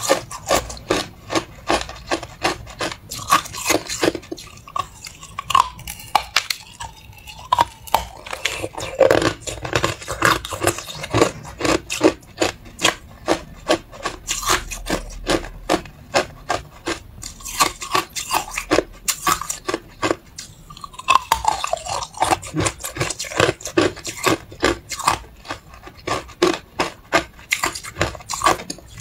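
Hard clear ice being bitten and crunched, a quick run of sharp cracks, several a second, with a couple of brief lulls.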